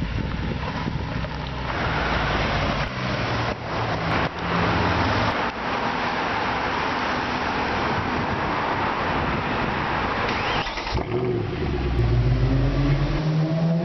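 Short sports-car clips edited back to back: a car engine running, then a long stretch of traffic and road noise as a car drives by. Near the end a car's quad-tip sports exhaust revs, its pitch climbing.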